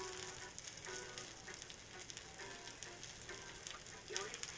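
Meat sizzling on a grill over a solid-fuel brazier: a steady crackle with many small pops and spits.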